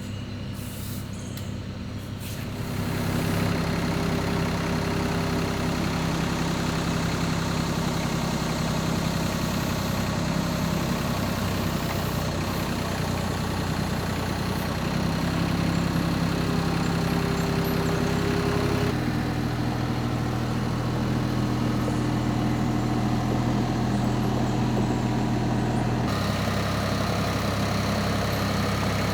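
Engine running steadily in a few separate stretches, its tone and pitch changing abruptly at about 3, 19 and 26 seconds in.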